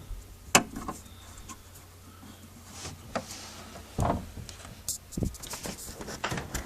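Scattered clicks and light knocks of hands handling parts and tools during a projection TV lamp replacement, with a sharp click about half a second in, duller knocks around the middle and a quick run of clicks near the end.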